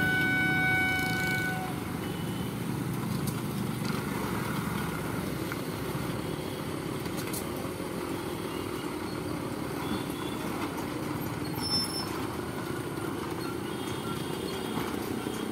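Road traffic over a railway crossing: motorcycle and truck engines running, with a vehicle horn sounding at the start and stopping after a second or two.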